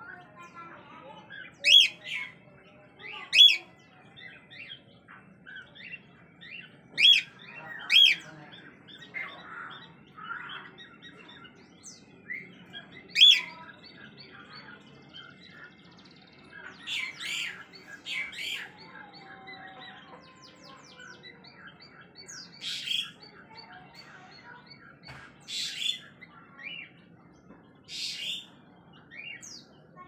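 Cockatiel giving short, shrill calls a few seconds apart, some in quick pairs, with softer chirping in between and more frequent, quieter chirps in the second half.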